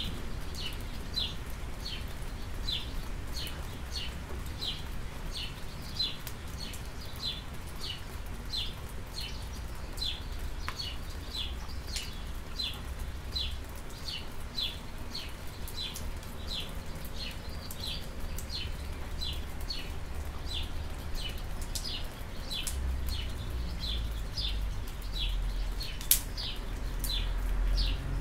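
A bird calling over and over, a short falling chirp about twice a second, over light rain with scattered drips. A low rumble swells near the end.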